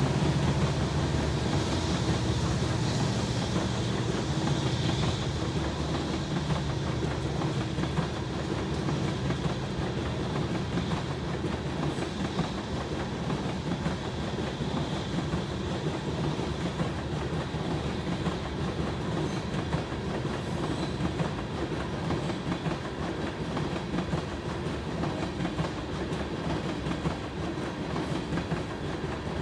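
Freight train of loaded aggregate-rock hopper cars rolling past, a steady noise of wheels on rails that slowly grows quieter.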